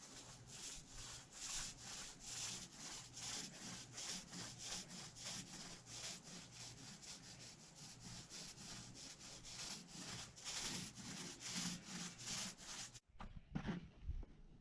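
Primer being worked onto the boat hull by hand in quick back-and-forth rubbing strokes, about three a second. The strokes stop suddenly near the end, followed by a couple of knocks.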